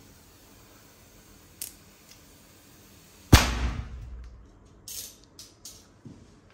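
A large latex balloon bursting with a single loud bang about three seconds in, spraying its white filling; a few short soft splats follow as the spatter lands.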